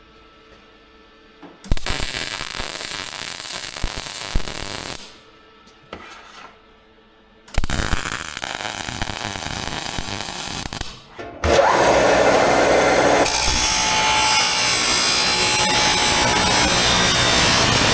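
A hand-held power tool working metal in three bursts, each starting abruptly. The last burst is the loudest and longest.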